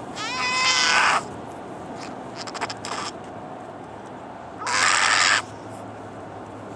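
A person imitating a raccoon with his voice: a harsh screech rising in pitch for about a second, a quick run of clicks near the middle, and a second harsh screech about five seconds in, over the car's steady low hum.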